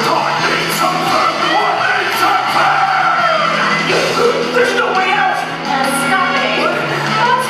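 Live stage musical: performers singing, with shouted lines, over loud backing music.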